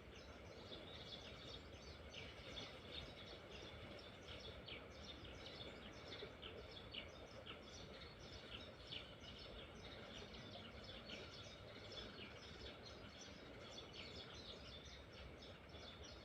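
Quiet outdoor ambience: faint high chirps repeating several times a second over a soft steady hiss.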